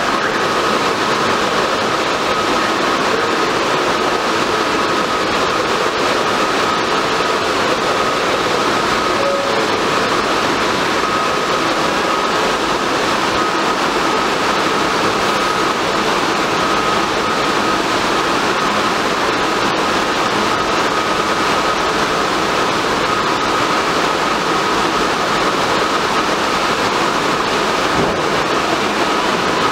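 R142A subway train standing at the platform with its doors open: the steady hum and whine of its onboard electrical and air-conditioning equipment, with one high steady tone that drops slightly in pitch near the end.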